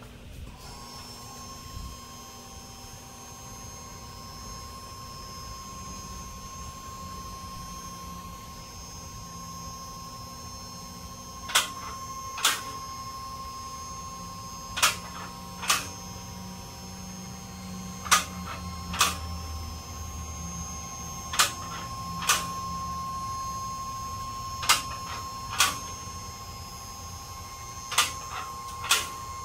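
Four-post car lift raising a car: its motor runs with a steady hum. From about twelve seconds in, its safety latches click over the lock rungs in pairs about a second apart, a pair roughly every three seconds.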